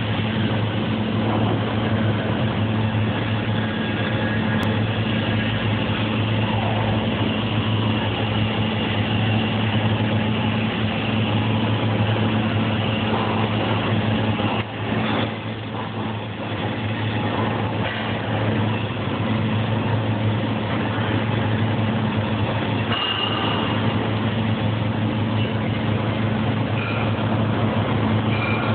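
CO2 gas-shielded (MIG/MAG) welding arc crackling steadily during the final capping pass, over a steady hum from the welding set. About halfway through the arc is briefly broken and then picks up again.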